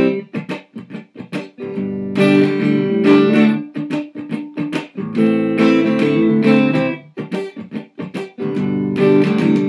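Electric guitar strummed as a rhythm part: chords ringing for about two seconds at a time alternate with quick runs of short, clipped strums, the pattern coming round about three times.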